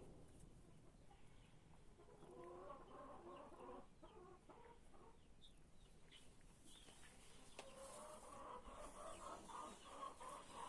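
Dominant hens clucking faintly in two spells, the second a quick run of repeated notes.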